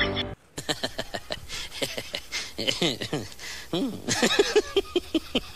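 Music cuts off just after the start; then a group of macaques chatter with a quick run of short calls and downward-sliding yelps, mixed with quick clicks.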